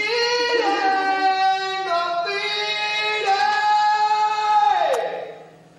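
A rock vocalist singing long, high held notes as a studio vocal take, three sustained notes in a row, the last one sliding down and dying away about five seconds in.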